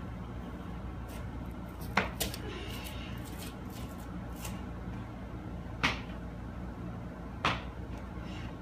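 A few short, sharp knocks or clicks: two close together about two seconds in, one near six seconds and one near seven and a half. A steady low hum runs underneath.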